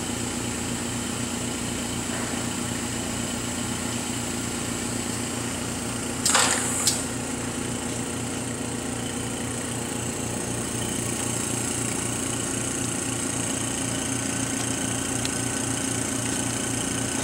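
Steady hum of running mask-aligner lab equipment, with a low steady tone and a high hiss. About six seconds in there is a short burst of noise followed by a click as the aligner stage is handled.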